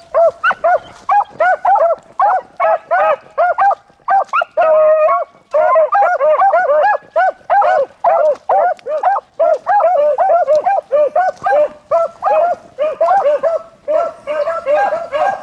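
Beagles giving voice on a rabbit track: a rapid string of short barks, about three a second, with one longer drawn-out bay about five seconds in. Near the end the calls overlap more densely.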